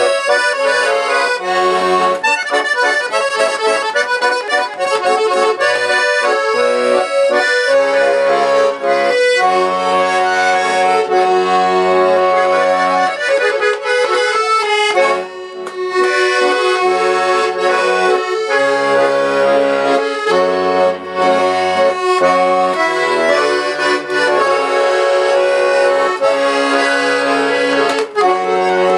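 Chaika accordion playing a tune, a melody over a steady bass-and-chord accompaniment, with a short break about halfway through. This is a test play just after a retuning in which about twenty misplaced reeds were put back in their right places.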